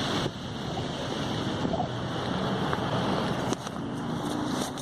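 Wind rushing over the microphone outdoors, a steady noise with a sharp click about three and a half seconds in.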